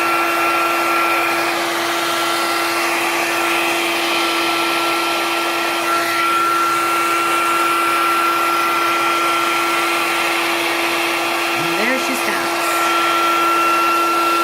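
Handheld blow dryer running steadily, a loud rush of air over a constant motor hum and whine, as it blows poured acrylic paint across a canvas.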